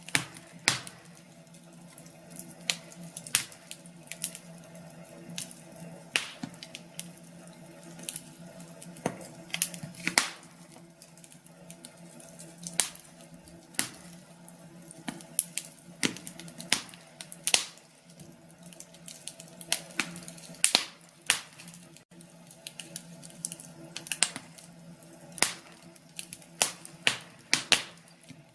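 Wood fire in a fireplace crackling, with irregular sharp pops and snaps over a soft hiss and a faint steady hum underneath.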